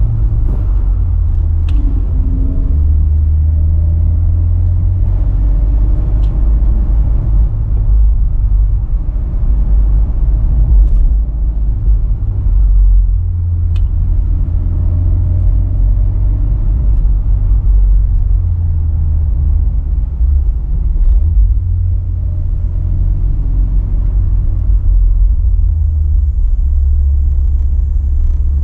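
A car under way, its engine and road noise making a steady low rumble that swells and eases a little as it drives through curves. A few faint clicks are scattered through it.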